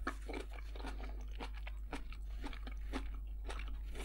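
A person chewing a mouthful of food close to the microphone: irregular wet crunches and mouth clicks, several a second.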